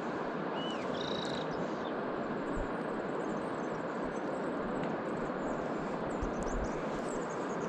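Steady rush of a fast-flowing river, a constant even noise, with a few faint high chirps about a second in.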